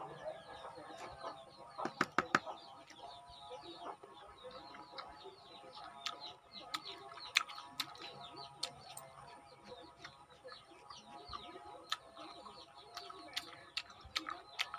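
Birds chirping continuously in the background, many quick short calls. Scattered sharp, wet mouth clicks from chewing a lemon slice sit over the chirping, loudest in a cluster about two seconds in and recurring around the middle and near the end.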